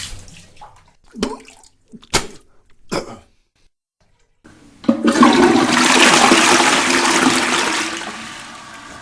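A person retches three short times, then a toilet flushes with a loud rush of water starting about five seconds in. The rush fades near the end into a quieter steady sound.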